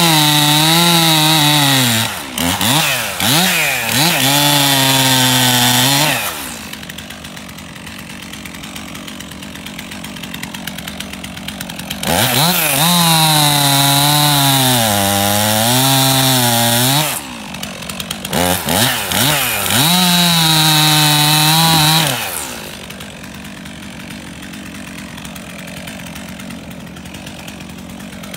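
Stihl MS 362 C two-stroke chainsaw cutting into a dead red oak log, in three full-throttle cuts of a few seconds each. Short revs and idling come between the cuts, and in the middle cut the engine pitch sags briefly and recovers. After about 22 seconds the saw settles to a steady idle.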